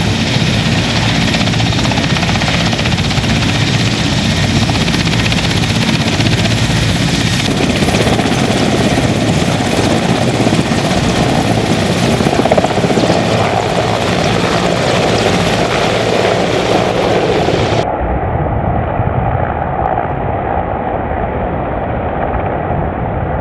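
Mi-8AMTSh military transport helicopters running with twin turboshaft engines and main rotors, a loud steady din as a group takes off and flies over. The sound shifts abruptly about 8 s in, and again about 18 s in, where it turns duller.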